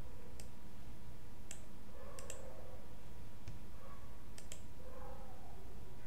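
Computer mouse clicking: about seven sharp clicks, two of them in quick double-click pairs, over a steady background hiss and hum.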